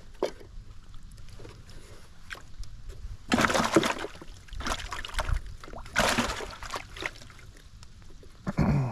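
Water sloshing and splashing in a minnow bucket as a hand reaches in for a bait minnow, in three irregular bursts. A short pitched sound near the end.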